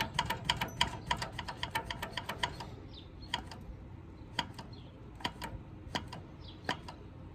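Manual chain-oiler pump on a Poulan 245A chainsaw being worked by hand: a fast run of clicks, about five a second, slowing after about three seconds to single clicks a little under a second apart. The oiler is pushing a little air but no bar oil yet.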